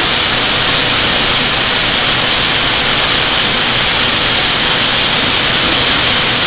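Chicken drumsticks sizzling in hot frying grease in a skillet: a loud, steady hiss.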